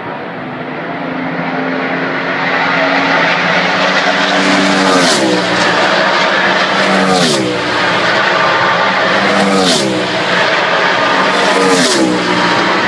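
NASCAR Sprint Cup stock cars' V8 engines at racing speed, the engine noise building over the first few seconds. Four cars then pass close by about two seconds apart, each with a sharp rush and a drop in pitch as it goes past.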